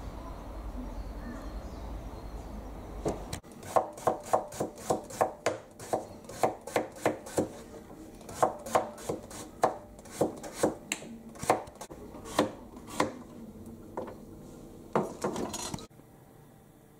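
Kitchen knife slicing carrots on a cutting board: a run of sharp knocks against the board, about two a second. It starts a few seconds in and stops abruptly near the end.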